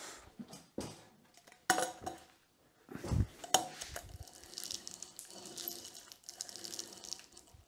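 Spiked metal hand roller rolled over a heat-shrunk plastic post sleeve, pressing it flat onto the bitumen sealant underneath: a few sharp clicks and knocks, a low thump about three seconds in, then a steady crackly rasp as it rolls back and forth.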